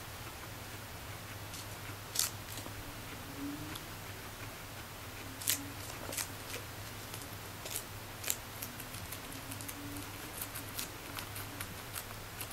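Guinea pig biting and chewing a crisp lettuce leaf: irregular sharp crunching clicks, a few louder bites about two, five and a half and eight seconds in and quicker small ones near the end, over a low steady hum.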